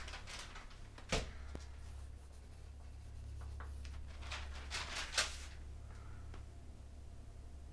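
A sheet of lined paper rustling as it is handled and held up: a bump about a second in, then a cluster of short crackles around four to five seconds in, over a steady low hum.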